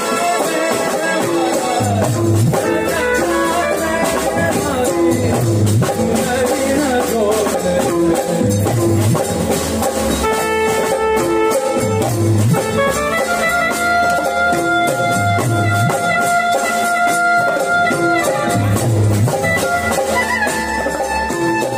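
Live raas kirtan music from a small band: a keyboard playing the melody, with long held notes in the second half, over drums keeping a steady dance beat.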